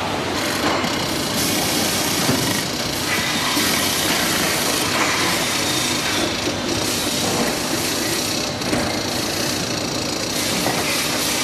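Factory machinery running with a steady, dense mechanical noise.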